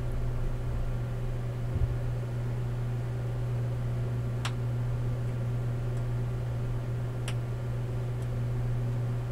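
A steady low hum, with a few brief faint clicks of a small watchmaker's screwdriver working at a worn screw in a pocket watch movement.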